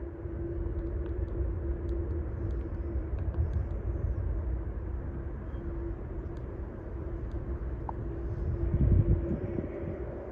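Low, steady rumble of distant vehicle noise with a faint steady hum, swelling briefly about nine seconds in.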